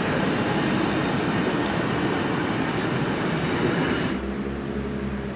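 A train passing close by, a loud continuous rush of wheels on the rails, which cuts off abruptly about four seconds in, leaving a steady low hum.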